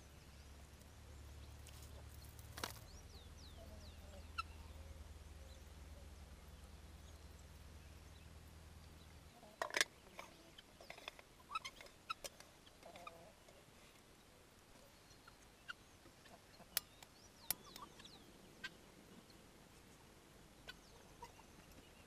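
Chickens clucking faintly. Under them a low steady rumble cuts off about nine seconds in, followed by scattered sharp clicks and knocks.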